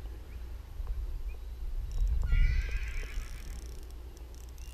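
A single wavering animal call, about a second long, some two seconds in, over a steady low rumble.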